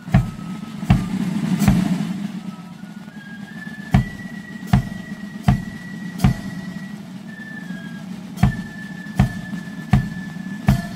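A marching flute band playing a tune: flutes carry a high melody over side drums, while the bass drum and cymbals strike together about every three-quarters of a second. The beat pauses twice for about two seconds.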